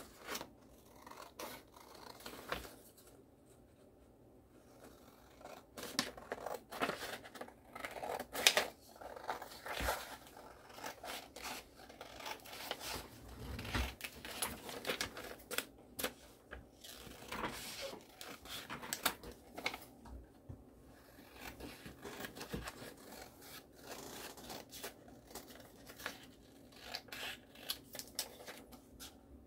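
Scissors snipping through paper shipping labels, a run of short, irregular cuts.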